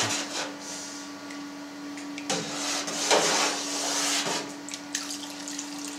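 Hot water poured from a plastic ladle into a vat of cheese curds and whey while the curd is stirred, splashing in spells from about two to four and a half seconds in, over a steady low hum. This is the curd being washed with hot water to raise its temperature.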